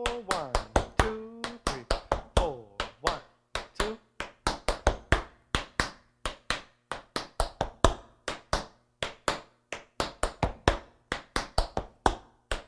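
Tap shoes striking a wooden floor: a tap drill of shuffles, toe-heel drops and scuffs, with sharp metal taps several a second in a steady rhythm.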